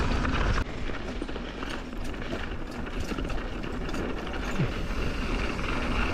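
Mountain bike running down a dirt trail: tyre and trail noise with frequent rattles and clicks from the bike, and a rear freehub ticking as it coasts. A louder rush drops away sharply just over half a second in.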